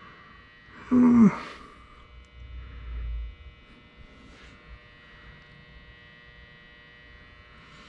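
Steady electrical hum, with a loud, short grunt falling in pitch about a second in, and a low rumble around three seconds in.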